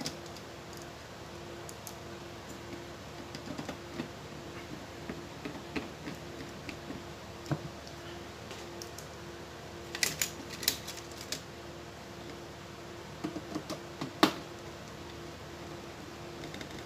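Scattered light clicks and taps of a screwdriver and fingers working on an LED TV's main board and its sheet-metal back panel, with a cluster of sharper clicks about two-thirds of the way through and the loudest single click shortly after, over a faint steady hum.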